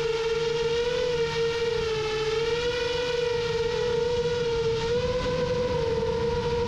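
Rajawali Fold 7 FPV quadcopter's motors and propellers in flight: a steady, loud whine that wavers slightly in pitch.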